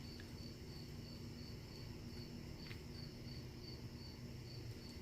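A cricket chirping faintly and steadily, about three high-pitched chirps a second, over a low steady hum.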